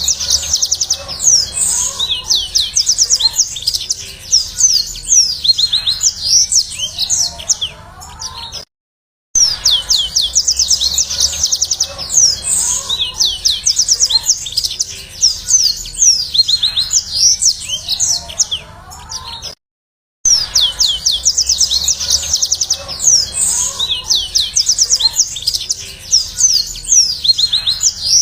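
Yellow-fronted canary (Mozambique canary) singing a fast, high twittering song of rapid trills and chirps. The same song passage of about eleven seconds plays over again twice, each time after a brief silent break: a looped recording.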